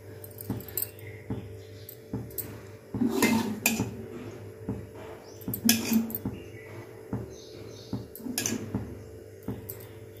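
Hands coating a potato ball in thick gram-flour batter in a steel bowl: soft wet handling of the batter with a few sharp clinks against the steel.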